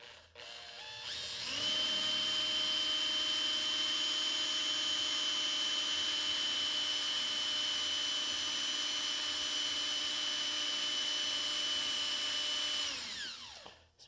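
Corded handheld electric drill drilling into cast iron. Its motor spins up over the first second or so, runs at a steady pitch with a high whine, then winds down and stops near the end.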